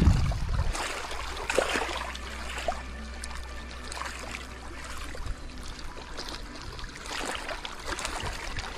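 Water splashing and trickling sound effect over a low steady rumble, opening with a loud hit.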